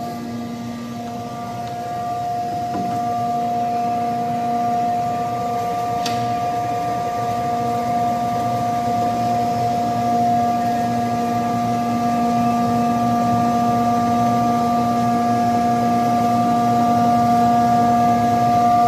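Stainless steel chili powder grinder running at full speed: a steady, high motor whine over a hiss of grinding, slowly getting a little louder.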